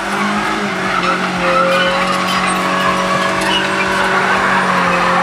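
Mazda car's petrol engine held at steady high revs while its tyres spin and slip on loose dirt, straining on a tow chain against a heavy crawler bulldozer.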